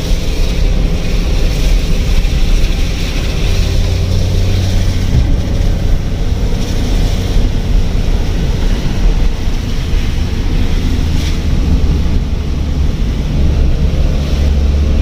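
Car driving on a wet road in rain, heard from inside the cabin: a steady low road rumble under a hiss of tyres and rain.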